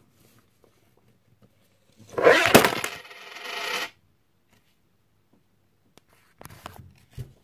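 A camera falling off its tripod and clattering onto the desk: a sharp knock about two and a half seconds in, inside a rattling clatter lasting about two seconds. A few soft knocks and rustles near the end.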